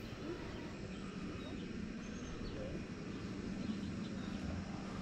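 Outdoor hillside ambience: a steady low background noise with a few faint, short bird chirps.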